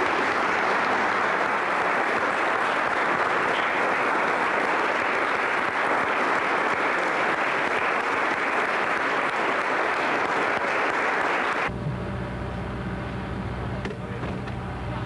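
A room full of people applauding, dense and steady, cut off abruptly about twelve seconds in. A tour coach's engine follows, idling with a low, steady rumble.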